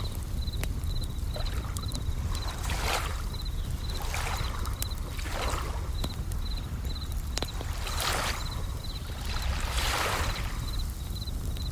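Bell crickets (suzumushi) chirping in a steady high repeating rhythm over waves washing in and out every couple of seconds, with a low steady rumble of surf. A few sharp pops from a crackling campfire are scattered through.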